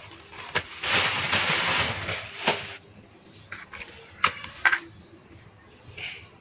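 A plastic sheet crinkling and rustling as it is pulled out of a pit for about two seconds, then two sharp scratches about half a second apart as a match is struck on its matchbox.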